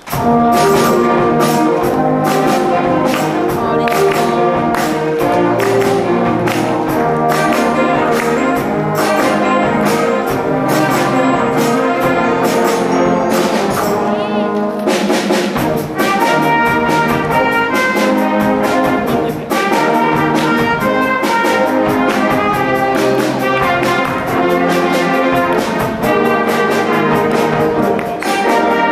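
School concert band playing: brass and woodwinds in loud held chords over a steady percussion beat, coming in together right at the start.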